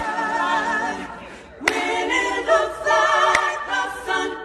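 A choir singing a cappella as background music, several voices holding long notes with vibrato, breaking off briefly about a second and a half in before going on.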